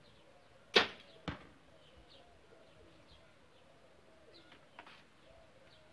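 A compound bow fired with a hinge release: one sharp, loud crack of the string and limbs under a second in, then a second, quieter hit about half a second later. Birds chirp and coo faintly in the background.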